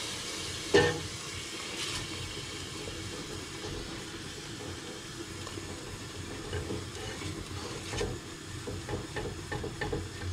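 A spoon stirring and scraping a thick gram-flour and tomato curry paste as it sizzles in the pot, cooking the paste out and keeping it from sticking and burning. A sharp knock about a second in, and quicker scrapes and taps near the end.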